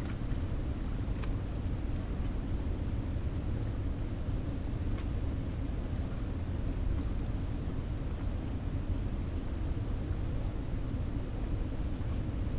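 Steady low rushing rumble of water pouring through a dam spillway, with a thin, steady high insect drone above it.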